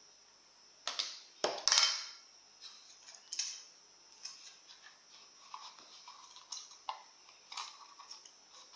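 Cutlery clinking and scraping against a dish as food is served at the table: scattered sharp knocks and taps, loudest about a second and a half in, with fainter rattles and rustles between them.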